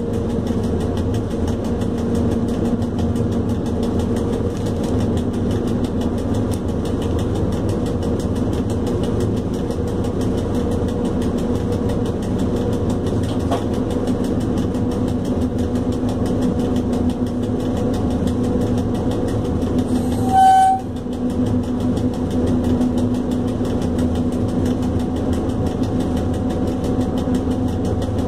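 ET22 electric locomotive underway, heard from its cab: a steady rumble and hum from the running locomotive and wheels on the track. About twenty seconds in, the locomotive's horn gives one short blast.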